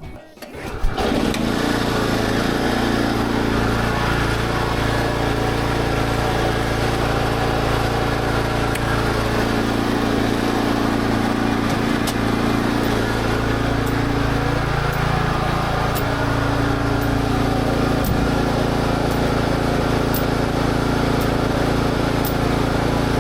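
Kubota SPJ400 rice transplanter's small engine starting about a second in and then running steadily on a test run after repair.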